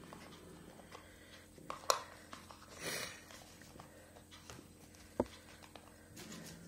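Handling noises from a phone's cardboard retail box and its contents: a sharp tap about two seconds in, a brief rustle around three seconds in, and another sharp tap a little after five seconds.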